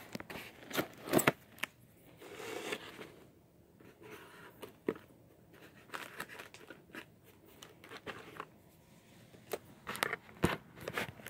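Cardboard box being handled and cut at to open it: scattered clicks, scrapes and rustles, with the sharpest clicks about a second in and near the end.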